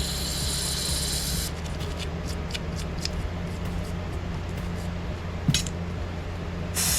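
A short hiss of aerosol carburetor cleaner sprayed through a carburetor's emulsion tube, lasting about a second and a half, then light clicks and taps as the small parts are handled, and another spray starting near the end. A steady low hum runs underneath.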